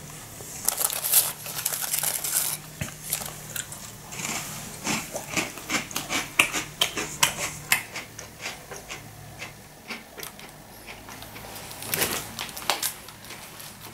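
Crisp cinnamon biscuits being chewed: irregular crunching and crackling, densest in the first few seconds and again briefly near the end.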